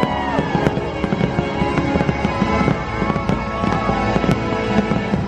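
Fireworks bursting in quick succession, many bangs and crackles, with the show's music playing underneath.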